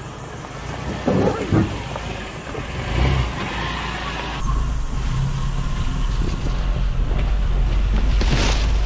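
Mitsubishi L300 Delica van crawling past on a rocky 4WD track, its engine running with the tyres crunching over stones. About halfway through this gives way to a steady low drone of the moving van with wind on the microphone, and a swish near the end as ferns brush against the side.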